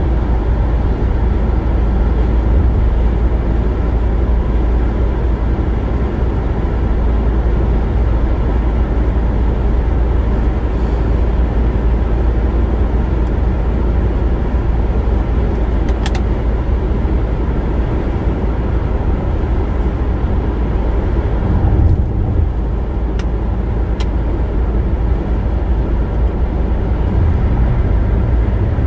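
Car cruising at highway speed: a steady rumble of tyre and road noise with engine hum. There are a few faint ticks partway through, and the rumble swells briefly once.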